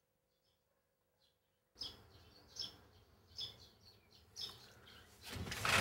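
Near silence with a faint hum, then outdoor ambience with short high bird chirps repeating about once a second. Near the end a louder rushing rattle builds, a sliding lattice-glass front door being pulled open.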